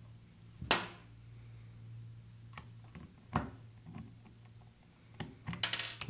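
A few sharp metallic clicks and taps as screws and parts are handled against a steel electrical box, the loudest about a second in, with a short rattle near the end. A steady low hum runs underneath.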